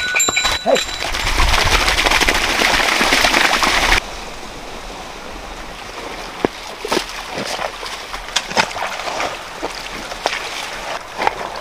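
Water rushing for about four seconds, then an abrupt cut to quieter trickling water with scattered splashes and scrapes from a hoe working wet mud in an irrigation channel.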